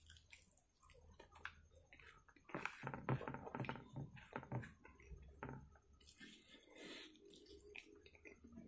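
A person's wet chewing and lip smacking while eating by hand: a run of short, sharp smacks, loudest from about two and a half to five seconds in.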